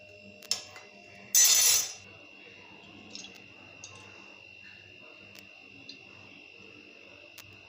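Kitchen utensil sounds: a metal clink, then a loud, brief scrape or rattle of about half a second, followed by a few faint taps. A faint steady high tone hums underneath.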